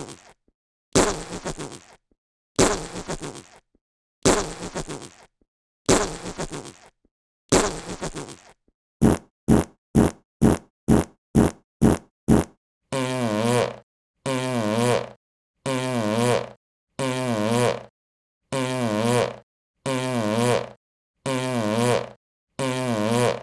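Fart sound effects played one after another, with short silences between them. First comes a handful of noisy farts, then a quick run of about eight short ones, then the same longer, wavering, pitched fart repeated about eight times.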